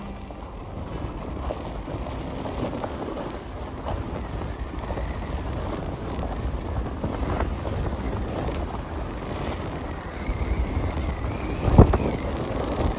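Wind rushing over the microphone and the hiss and scrape of sliding down over tracked snow, with a sharp thump near the end.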